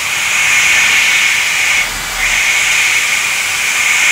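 CNC milling machine thread milling an acrylic block: the spindle and the air blast at the cutter make a steady hiss, which dips briefly about two seconds in.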